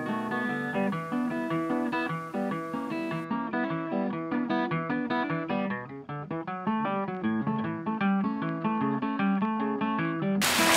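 Background music: an acoustic guitar playing a run of plucked notes. Just before the end a loud, steady hiss cuts in abruptly.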